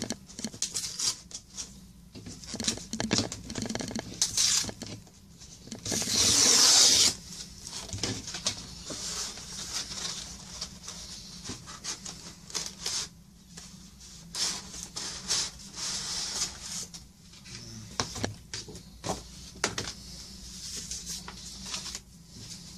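A paper Priority Mail envelope and the cardboard packing inside it being handled and opened: scattered rustles, scrapes and light taps, with one louder tearing stretch of about a second some six seconds in.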